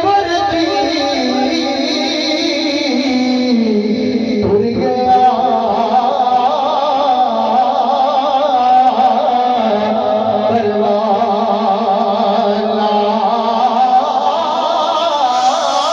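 A man singing a Punjabi Sufi kalam into a microphone, holding long wavering notes, amplified through a PA system.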